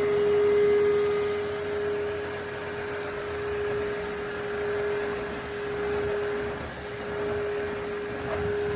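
Cordless stick vacuum motor running steadily: a constant whine over a hiss of rushing air.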